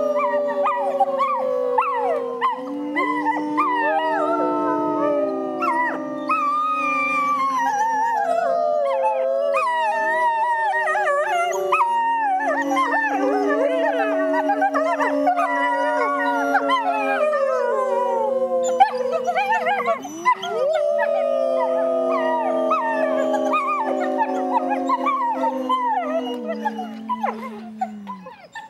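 Group howl: people and young Hudson Bay wolf pups howling together, a chorus of long overlapping howls that slide downward in pitch, mixed with higher wavering calls, fading out near the end.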